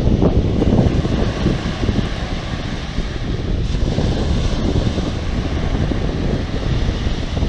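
Wind buffeting the microphone in a low, uneven rumble over the wash of sea waves.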